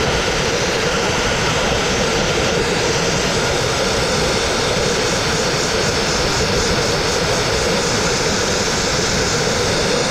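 Dustless (wet abrasive) blasting nozzle spraying crushed-glass media at a brick wall, a steady loud rushing hiss as it strips cement-based masonry paint off the brick.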